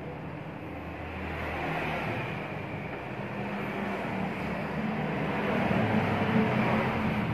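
Steady mechanical drone with a low hum and noise, getting louder in the second half.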